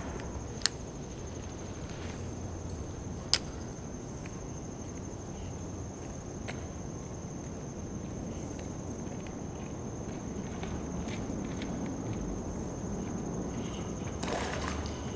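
An insect's steady high-pitched buzz over a low outdoor rumble, with two sharp clicks about half a second and three seconds in, and a fainter one later.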